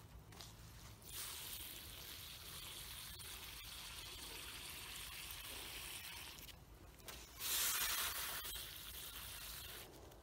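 Water hissing and gushing from a hose-fed watering probe pushed into the soil beside a pepper transplant, running strongly. It drops out briefly about six and a half seconds in, then comes back louder for about a second.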